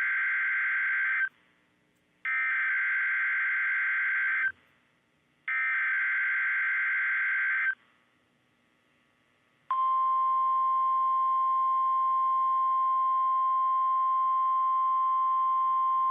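Emergency Alert System SAME header: three bursts of warbling data tones, each about two seconds long with short gaps, the first already under way and ending about a second in. About ten seconds in, the single steady 1050 Hz NOAA Weather Radio warning alarm tone starts, announcing a weather alert.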